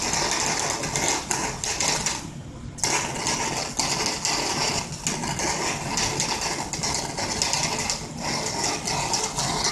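High-voltage plasma arc from a double flyback transformer driver, crackling and buzzing as it sears a salmon patty in a steel pan. It weakens briefly a little over two seconds in, then comes back.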